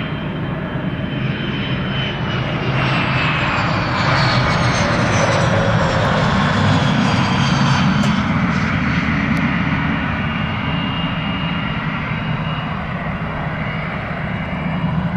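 Cessna Citation CJ3's twin Williams FJ44 turbofan engines on landing: a steady jet rumble with a high whine that slides down in pitch as the aircraft passes, loudest midway, easing a little as it rolls out.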